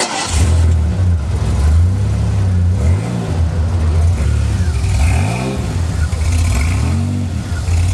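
DeLorean DMC-12's PRV V6, a Stage 2 performance engine, running and revved up and back down about three times.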